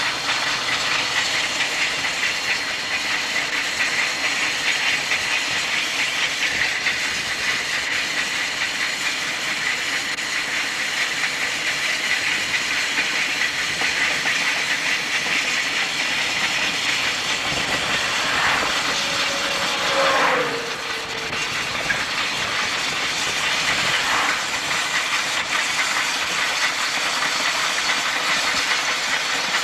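Durango & Silverton narrow-gauge steam locomotive No. 481, a K-36 2-8-2, running at speed, heard from inside a moving car pacing it: a steady hiss and rumble mixed with road and wind noise. A brief falling sweep comes about twenty seconds in.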